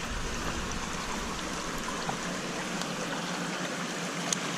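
Creek water flowing and trickling steadily, with a single light click near the end.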